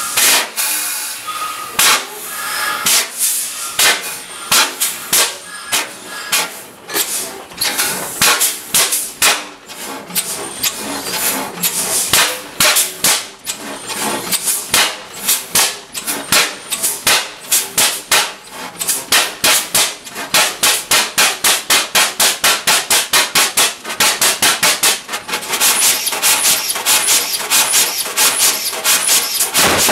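Old 1930s butane-fuelled generator engine running, each exhaust beat a sharp crack. The beats come unevenly at first, then settle into a steady rapid beat of about four a second that grows denser near the end.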